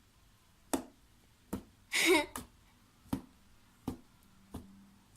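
Homemade slime being pressed and worked by hand, giving sharp clicking pops about once every 0.8 seconds, with one longer, louder burst about two seconds in.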